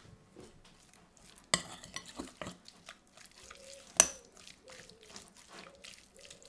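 A metal spoon stirring diced chicken in a sticky flour-and-oil marinade inside a glass bowl, scraping and squishing through the pieces. The spoon clinks sharply against the glass twice, the second clink about four seconds in being the loudest, and the stirring then settles into short soft strokes about two a second.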